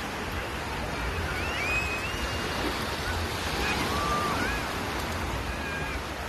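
Shallow sea surf washing in over a sandy beach, a steady rushing noise, with faint high calls gliding up and down now and then.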